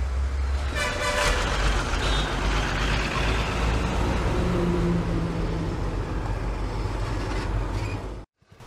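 Road traffic running past with a steady low rumble, and a vehicle horn tooting briefly about a second in. The sound cuts off abruptly near the end.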